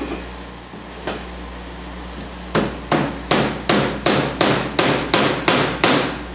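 Hammer driving a tack through folded canvas into a wooden stretcher bar at a corner: a single tap, then a quick, even run of about ten taps, close to three a second.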